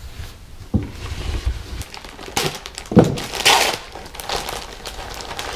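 Clear plastic packaging crinkling as replacement helmet pads are handled, with a few thumps on the table; the loudest thump comes about three seconds in.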